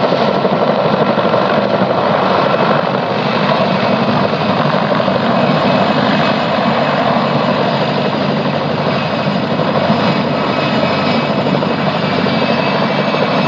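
Helicopter hovering with a load slung on a long line, its rotor and engine running steadily.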